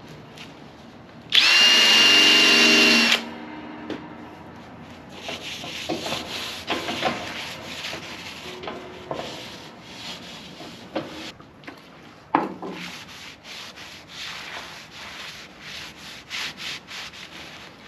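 Cloth rag rubbing over the sanded steel plow blade in short, irregular strokes, wiping it down with acetone before painting. About a second and a half in, a loud, steady whine lasting about two seconds starts and stops abruptly.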